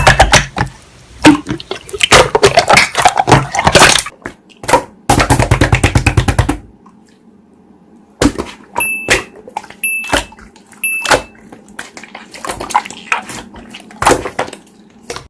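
Slime being squished and poked by hand, giving wet clicks and pops. They come in a dense, fast run for the first several seconds, then as sparser single pops after a short pause.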